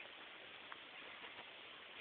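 Near silence: a low steady hiss with a few faint clicks.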